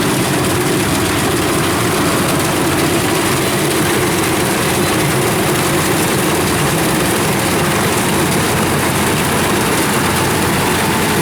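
Heavy farm-machine engine running loudly and steadily close by, an even churning drone without pauses or changes in speed.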